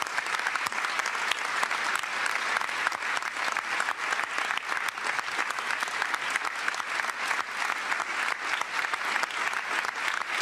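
Large audience applauding: dense, steady clapping that holds at one level throughout.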